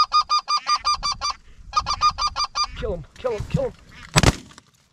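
Specklebelly goose calling: two fast runs of high, evenly pitched yelping notes, about eight a second. Then, near the end, a single loud shotgun shot at the incoming goose.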